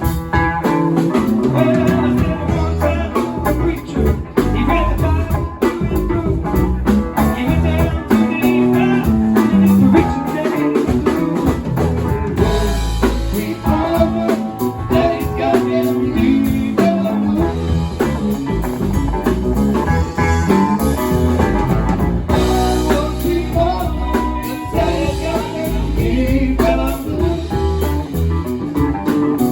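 Live band playing a blues number, with guitar and drum kit.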